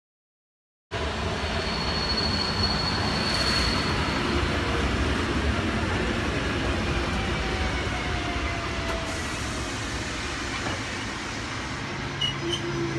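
SKM electric commuter train at the platform: a steady rumble of wheels and running gear that starts abruptly about a second in, with a faint falling whine in the middle and a couple of clicks and a short tone near the end.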